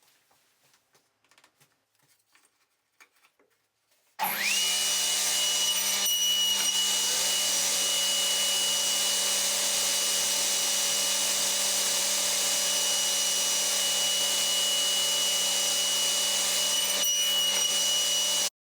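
A table saw's electric motor starts about four seconds in, spins up and runs steadily with a high whine, then cuts off abruptly near the end. A few faint clicks come before it.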